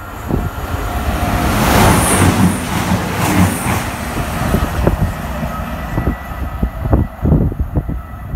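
CrossCountry Voyager diesel multiple unit passing through the station at speed. A rushing noise builds and peaks as the front of the train goes by, then a heavy rumble carries on with a run of sharp wheel clacks as the carriages pass.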